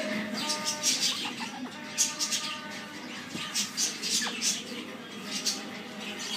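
Indian ringneck parrot making soft, irregular squeaks and chirps while its head is being scratched, with one quick falling whistle about four seconds in.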